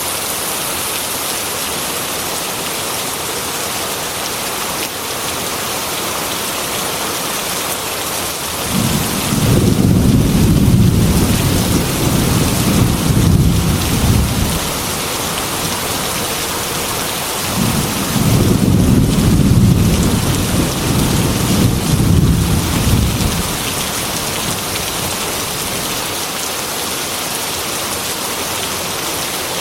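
Heavy rain falling steadily on a glass window, a constant hiss, with two long rolls of thunder rumbling deep and loud, one about nine seconds in and another about eighteen seconds in, each lasting some five or six seconds.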